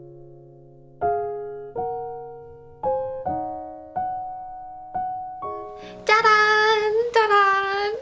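Background piano melody, single notes struck one after another, each ringing out and fading. Near the end a woman's voice sings out "ta-da, ta-da" (짜잔 짜잔) twice, in a sing-song tone.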